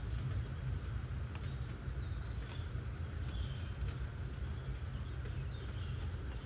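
Steady rain with a constant low rumble underneath and a few faint drip-like ticks. Faint bird chirps come through now and then.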